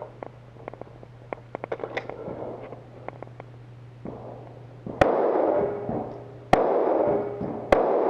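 Pistol shots during a timed IDPA course of fire: a run of faint, sharp pops, then three loud shots about a second and a half and a second apart, each ringing out with echo.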